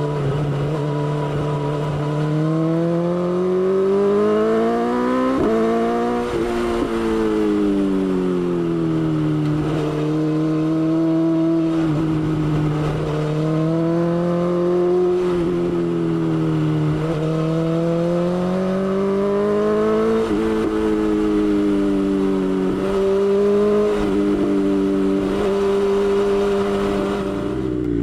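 BMW S1000XR's inline-four engine running under way, its pitch rising and falling over several seconds as the throttle is opened and eased, with a few abrupt steps in pitch.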